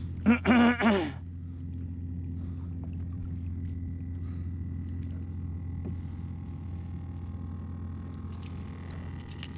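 A boat motor running steadily as a low, even drone, with a brief voice about half a second in.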